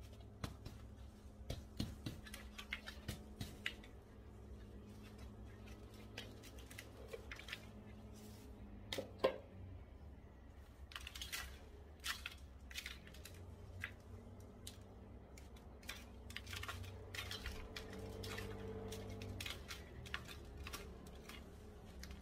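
Gloved hands handling a plastic plant pot and a soil root ball during repotting: scattered short taps, crackles and soil rustling, with a sharper knock about nine seconds in. A steady low hum runs underneath.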